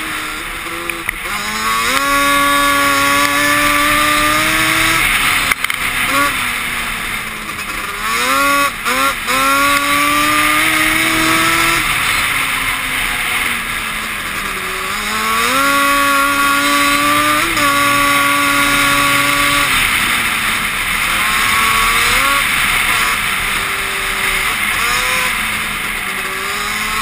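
Yamaha Banshee quad's two-stroke twin engine under way, revving up and holding a steady pitch, then easing off and climbing again several times as the rider works the throttle.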